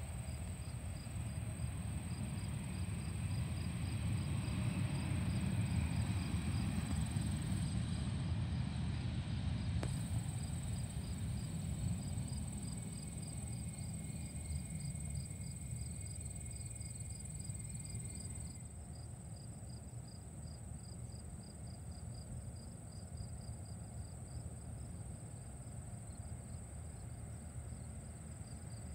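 Field insects such as crickets chirping in a fast, even rhythm with a steady high buzz, over a low rumble that is loudest in the first third.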